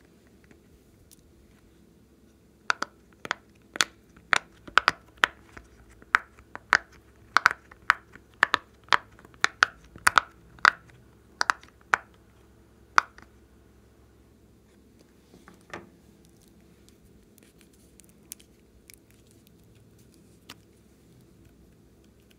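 Silicone pop-it fidget toy having its bubbles pressed in: a run of sharp pops, about two a second, for roughly ten seconds, then a few fainter pops later on.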